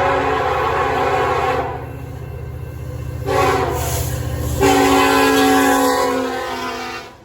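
A coal train locomotive's air horn sounds over the low rumble of its engine. A long blast ends about two seconds in, and after a pause a shorter blast runs straight into a long one that cuts off just before the end.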